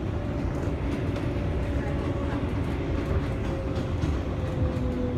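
R142A subway train rolling past on an elevated track, heard through a train window: a steady rumble of wheels on rail, with a thin motor whine that slowly falls in pitch.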